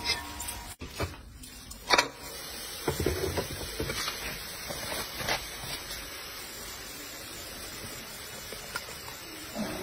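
Steel tongs knocking and clinking a few times against a crucible as it is lifted out of a small melting furnace and tipped, over a steady hiss.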